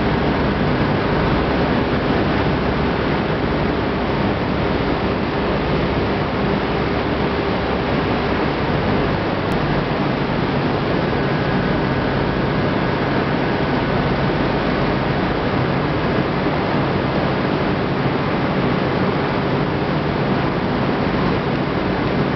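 Steady, loud rushing of corn kernels pouring down a steel chute into a steel tank, over the even hum of milling machinery running.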